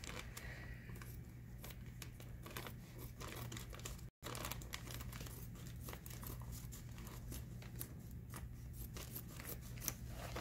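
Crinkling and tearing of packaging as a t-shirt is unpacked: a run of small crackles over a low steady hum, with a momentary drop-out about four seconds in.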